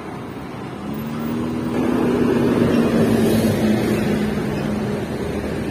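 Car engine running close by with traffic noise: a steady low hum, swelling louder about two seconds in.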